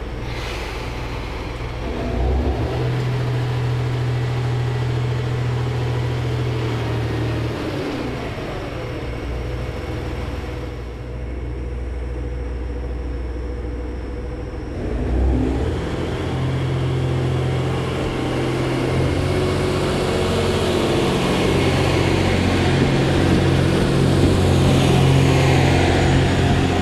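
JR East GV-E400 series diesel-electric railcar pulling away, its diesel engine running under load with a steady low drone. The drone eases off for a few seconds about a third of the way in, then picks up again halfway through and grows louder as the train gathers speed.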